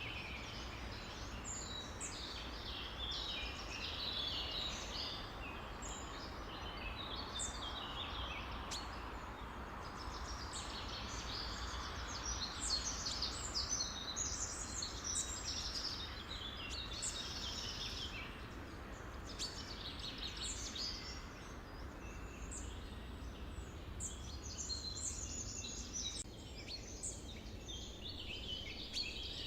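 Many songbirds chirping and trilling over one another in a dense, unbroken chorus, over a steady background hiss.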